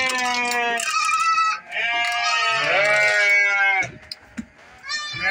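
Goats bleating: two long, loud bleats one after the other, then a third starting near the end.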